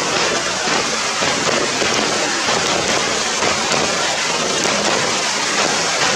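Heavy rain falling steadily, a loud even hiss.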